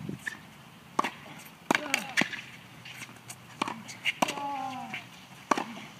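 Tennis balls struck by racquets and bouncing on the court in a practice rally, with a sharp hit roughly every second. Short falling-pitch sounds come between some of the hits.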